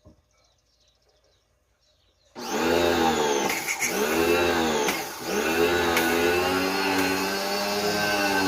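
A click, then about two seconds in an electric pressure washer's motor starts up and runs with a steady whine. Its pitch sags twice briefly in the first few seconds before holding steady.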